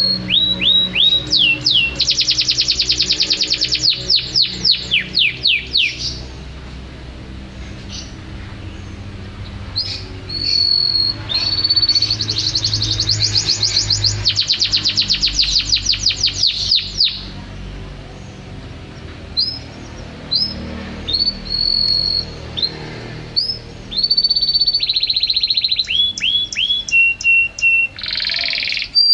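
Domestic canary in full song: long rapid trills of fast repeated notes, held high whistles and quick downward-sweeping notes, with short pauses between phrases.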